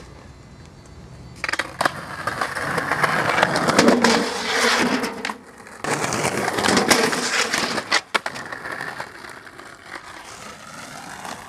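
Skateboard wheels rolling over rough pavement, a gritty rumble that starts abruptly about a second and a half in. It breaks off briefly around five and a half seconds and drops to a quieter roll after about eight seconds.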